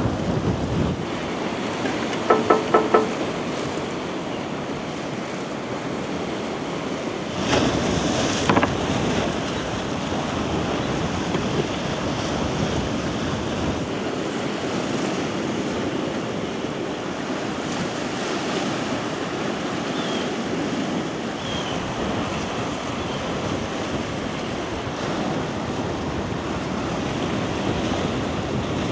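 Caspian Sea waves washing ashore, a steady rush of surf with wind. Four quick light clinks come about two seconds in, and a brief clatter follows around eight seconds in.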